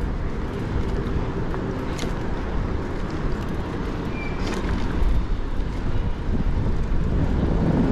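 Steady city street noise while cycling: passing car traffic over a low rumble of wind and road, with a couple of faint clicks.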